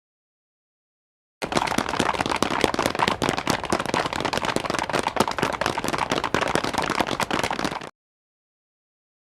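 Dragon Ball Z anime running sound effect: a dense, very fast patter of footsteps, too rapid to count, which starts about a second and a half in and stops abruptly near the end.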